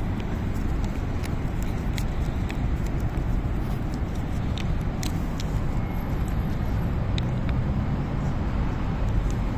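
Steady low outdoor background rumble, with faint scattered clicks over it.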